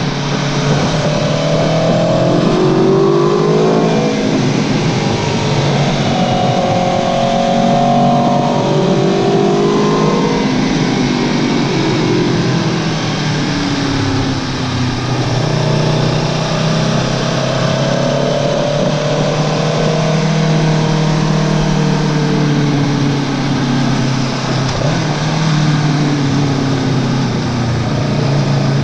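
Aprilia Tuono V4 1100 Factory's V4 engine, through an Akrapovic exhaust, running hard under way, its note rising and falling again and again as the bike accelerates and backs off.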